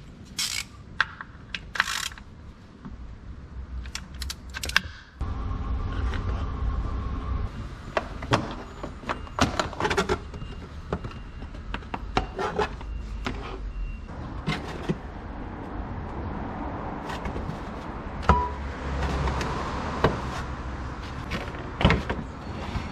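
Sharp metallic clinks and knocks of tools and parts being handled during work on a car, over a steady low mechanical hum that starts about five seconds in.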